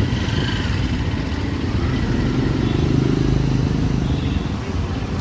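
A motor vehicle engine running close by in road traffic, swelling a little around the middle.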